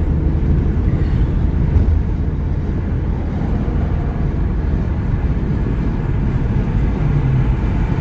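Steady low road and engine noise of a car driving at highway speed, heard from inside the cabin.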